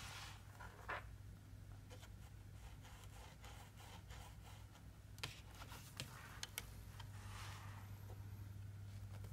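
Faint handling of a cardboard pop-up book: soft paper and card rustling with a few light sharp clicks as the pages are touched and the book is folded shut. A low steady hum runs underneath.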